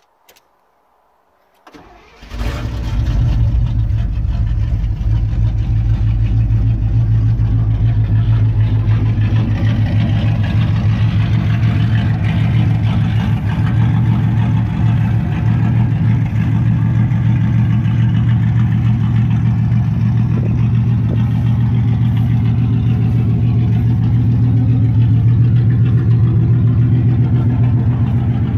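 The 1989 Chevrolet Silverado's 5.7-litre V8 turning over briefly on the key and catching about two seconds in, then idling steadily.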